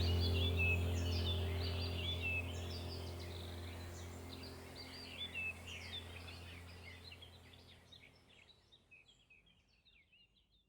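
Small birds chirping and twittering over a steady low hum, the whole sound fading out gradually until only faint chirps remain near the end.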